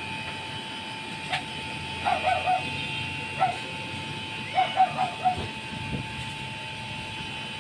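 Short animal calls, some single and some in quick runs of three or four, over a steady hiss and a thin steady tone.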